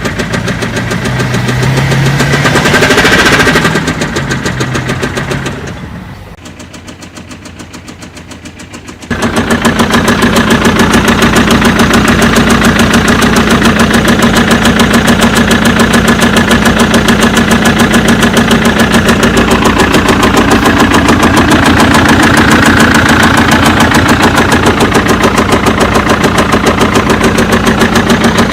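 BMW 1 Series 2-litre diesel engine running with a rapid, even tapping knock: the abnormal noise it is being checked for. The sound drops in level about six seconds in, then comes back louder about nine seconds in and stays steady.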